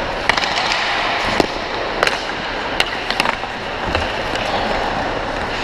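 Ice hockey skates scraping and carving on the rink ice, with a series of sharp clacks of hockey sticks and puck, most in the first three and a half seconds.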